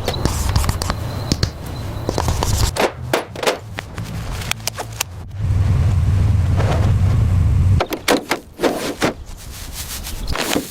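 A low mechanical rumble, loudest from about five and a half to eight seconds in, under a run of sharp knocks and clanks.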